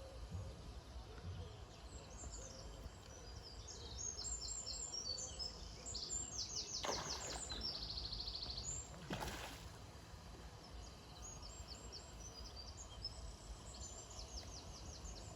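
Songbirds singing, with quick high trills and rapidly repeated notes, over a low steady outdoor rumble. Two short rushing sounds come about 7 and 9 seconds in.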